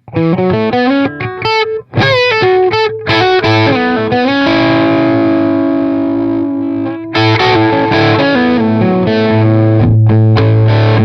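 Overdriven electric guitar played through an Oldfield 6715 all-tube amp, which runs two EL84 power tubes and an EF86 preamp tube. A quick run of picked single notes is followed by a held chord ringing out, then more notes and another sustained chord near the end.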